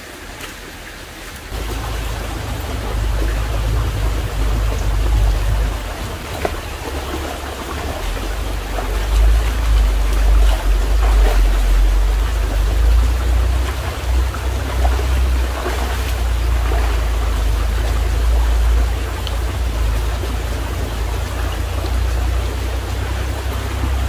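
Stream water running, a steady rushing noise, with a heavy low rumble that comes in about a second and a half in and holds.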